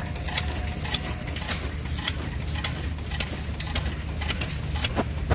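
An engine running, with a regular sharp click about twice a second over a steady low hum.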